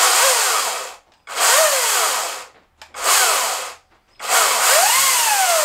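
Atlas 80V cordless brushless electric chainsaw run unloaded on its variable-speed trigger in four short bursts, the motor and chain whirring up in pitch and winding back down each time the trigger is squeezed and let go. The last burst is the longest and goes highest.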